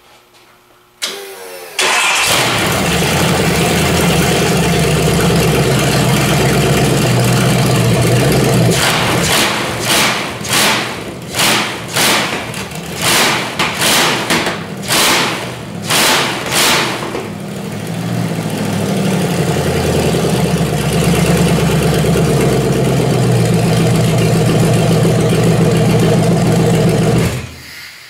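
Fuel-injected 5.9 Magnum (360 cubic inch) V8 cranks briefly on the starter and catches about two seconds in, runs loud, then is revved in a quick series of about ten throttle blips before settling back to a steady run. It is shut off near the end. It runs a little lumpy, which the owner puts down to the old spark plugs still in it.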